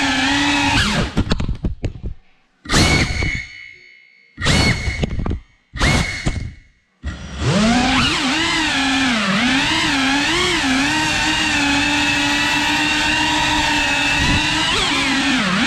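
Cinewhoop FPV drone's small brushless motors whining, the pitch wavering up and down with the throttle. About a second in the whine drops away and breaks into four short throttle bursts with silent gaps between them. Then it picks up again with a rising pitch and runs on, still wavering.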